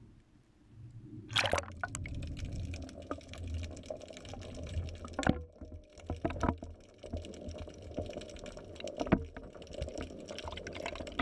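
A GoPro in its waterproof housing splashes into the water about a second in, then records underwater: a steady low rumble with scattered clicks and knocks, muffled through the housing.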